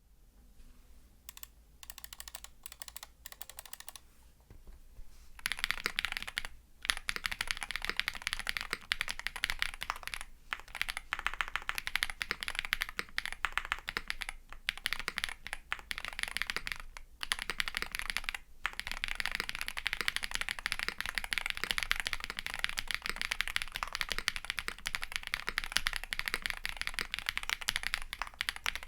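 Typing on a kbdfans Tiger80 Lite gasket-mount keyboard with a polycarbonate plate, Krytox-lubed Bolsa ZAKU switches and foam-dampened case. Scattered, quieter keystrokes for the first five seconds, then fast, continuous typing broken by a few brief pauses.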